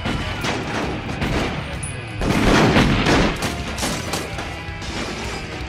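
Dense volleys of gunfire, many rapid overlapping shots with bullets striking the building, loudest and heaviest for about a second some two seconds in. Dramatic music runs underneath.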